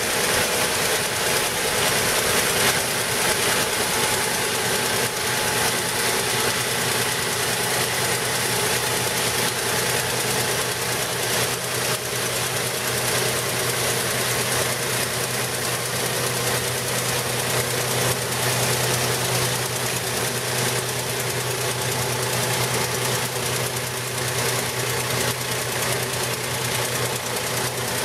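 Stripe Hog line-removal truck working steadily: a constant engine-and-pump drone under a loud, even hiss from its rotating high-pressure water-blasting head and vacuum recovery hoses as it strips painted lane markings from asphalt.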